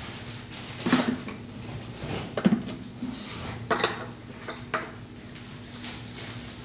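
Plastic bottles handled and set down: a handful of light knocks and clicks of plastic against a hard surface, spread a second or so apart.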